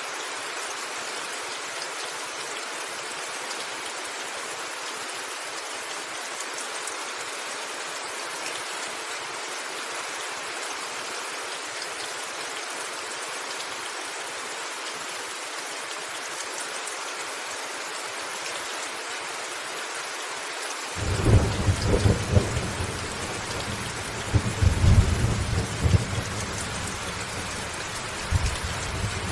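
Steady rain hissing. About 21 seconds in, a low thunder rumble breaks in, with louder rolls a second later and again a few seconds after that, while the rain goes on.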